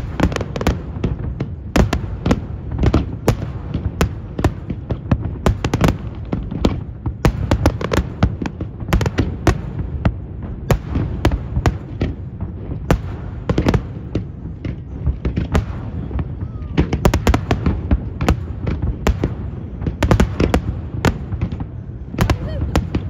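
Aerial fireworks shells bursting in a dense, continuous barrage: loud, irregular bangs and cracks several times a second over a steady low rumble.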